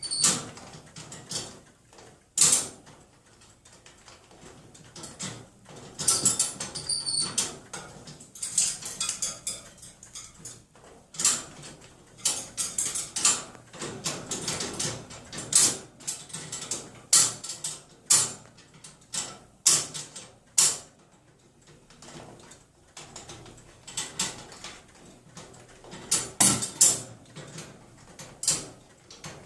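Metal cage doors being banged and rattled by a pet: irregular sharp clanks and rattles, one after another.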